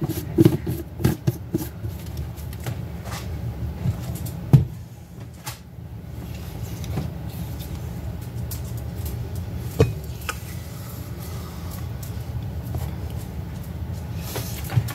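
Silicone spatula scooping and scraping peanut butter from a plastic jar into a measuring cup and a stainless steel mixing bowl, with scattered knocks of utensil on container, the loudest a few seconds in. A steady low hum runs underneath.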